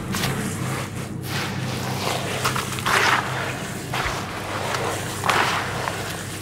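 Hands squeezing and kneading wet charcoal-and-sand mud with small white stones in a plastic basin: continuous wet squishing and gritty crunching, with two louder wet squelches about three and five seconds in.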